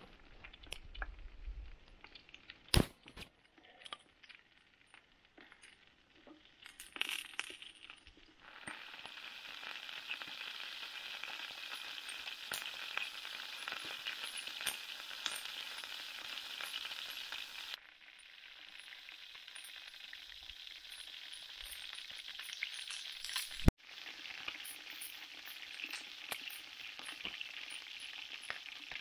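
Chicken drumsticks sizzling in a frying pan over a small wood-burning chip stove, a steady frying hiss that sets in about eight seconds in. Before that there are light clicks and one sharp knock. The sizzle dips briefly about two thirds of the way through, with a sharp click just after, then resumes.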